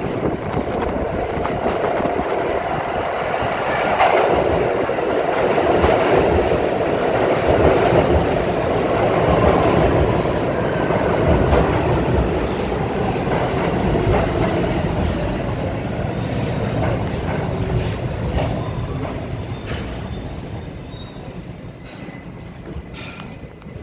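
R68 subway train pulling into an underground station. Its wheels rumble on the rails, loudest as the cars pass, with clicks over the rail joints. The sound fades as the train slows, with a brief high squeal near the end.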